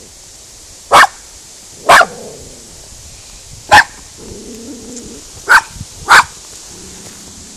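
Miniature schnauzer puppy barking at cows, trying to scare them off: five sharp single barks, unevenly spaced, the last two close together.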